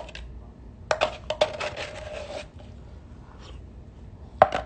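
Scraping and clicking against a food container as the last of the food is scraped out. A longer scrape starts about a second in and lasts over a second, with a few sharp clicks near the end.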